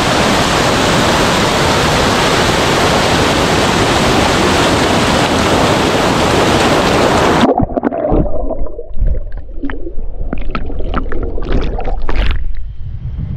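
Loud, steady rush of a waterfall. About seven and a half seconds in, the sound suddenly turns muffled and low, with gurgling and scattered pops, as the microphone is dipped under the water.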